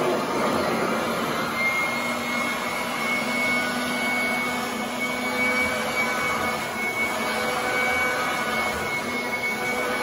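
Royal commercial upright vacuum running as it is pushed over carpet: a steady motor and airflow rush, with a thin high whine that sets in about a second and a half in.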